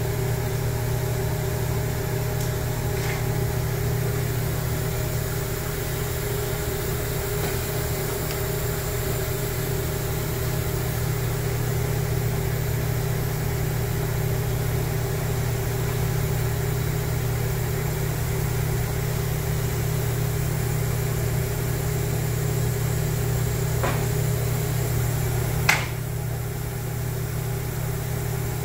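Steady low hum and hiss of machine-shop equipment, unchanging throughout, with one sharp click near the end.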